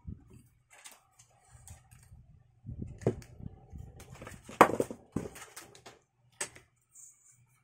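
Handling noise of pressure-washer parts: scattered plastic clicks and taps, then a busier stretch of rustling and thumps as the coiled plastic hose is lifted and laid down, with one sharp knock a little past halfway.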